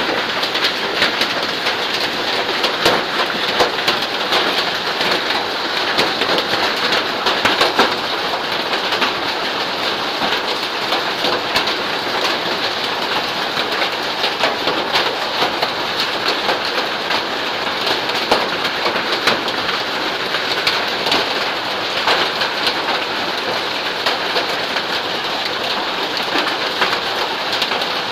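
Hail and rain pelting muddy ground and puddles: a dense, steady patter with many sharp ticks of hailstones striking.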